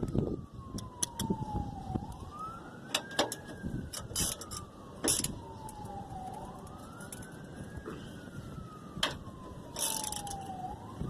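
Emergency-vehicle siren in the distance, wailing up and slowly down about every four seconds. Several sharp clicks and knocks sound over it.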